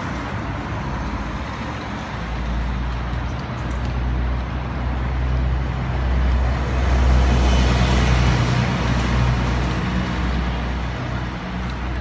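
Street traffic with a heavy vehicle's engine running close by, a low rumble that swells to its loudest about two-thirds of the way through and then eases off.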